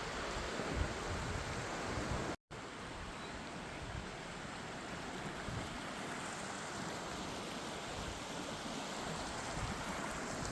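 Creek water rushing steadily, the stream running high after heavy rain. The sound cuts out for an instant about two and a half seconds in.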